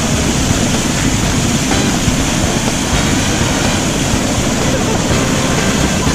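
Rushing water of a mountain stream and its falls: a loud, steady roar with no breaks.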